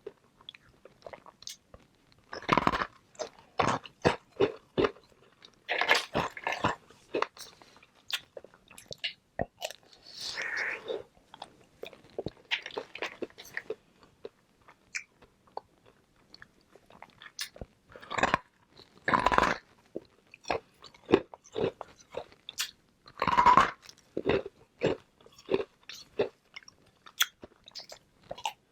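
Flavoured ice balls being bitten and chewed close to the microphone: repeated sharp crunches, in clusters of rapid crunching.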